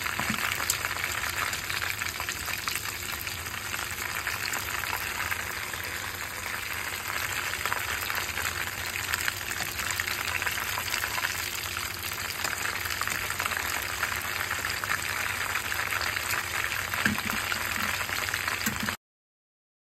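Lumpiang shanghai spring rolls frying in a pan of hot oil: a steady crackling sizzle that cuts off suddenly near the end.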